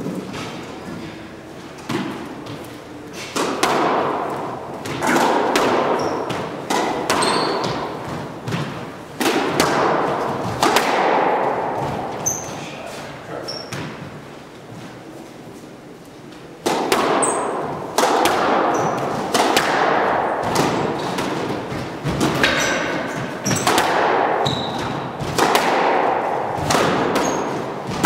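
Squash ball smacking off rackets and the court walls in fast rallies, each hit echoing around the enclosed court, with short high squeaks from shoes on the hardwood floor. Play goes quieter for a few seconds about halfway, then resumes with a sharp hit.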